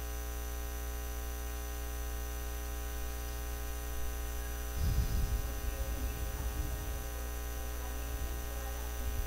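Steady electrical mains hum from the sound system, with irregular low rumbling joining in about halfway through.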